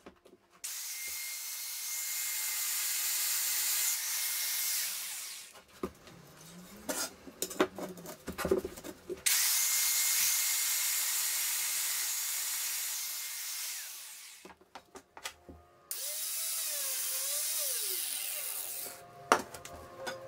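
Handheld electric power tool run against the edge of a plywood board in three bursts of several seconds each. Between the bursts come knocks and clatter from handling the tool and the wood.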